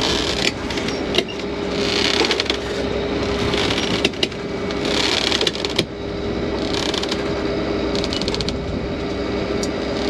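A dismasted sailboat at sea: a steady engine hum with water rushing past the hull in surges every second or two, and now and then sharp clicks and knocks from loose rigging and gear on deck.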